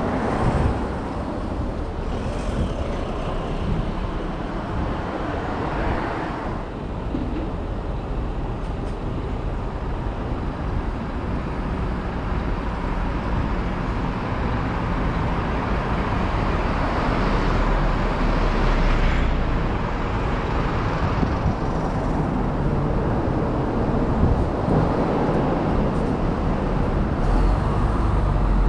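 Road traffic: cars and trucks driving past on a busy multi-lane road, a continuous rumble of engines and tyres that swells as vehicles go by.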